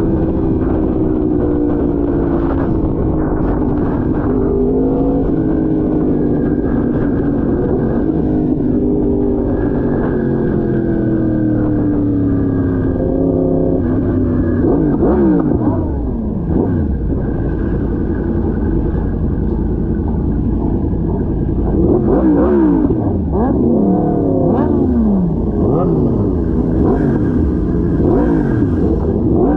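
Superbike engines on the move, the pitch sliding slowly down at first, then rising and falling again and again in overlapping sweeps from about halfway as the throttle is opened and closed.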